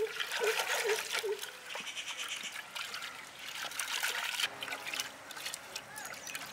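Water sloshing and splashing in a clay pot as a hand swirls and rubs through it, in quick irregular splashes.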